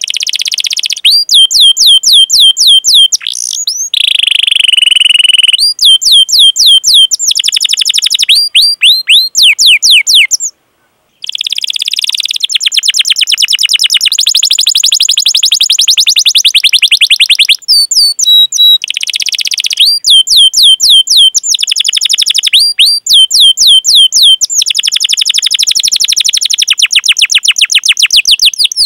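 Domestic canary singing loudly in long phrases: runs of rapidly repeated sweeping "cuit cuit" chirp notes alternating with fast rolling trills. The song breaks off briefly about ten and a half seconds in.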